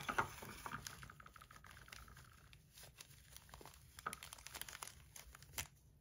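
Packaging being handled and opened: faint crinkling and rustling of wrapping, with scattered small taps and ticks.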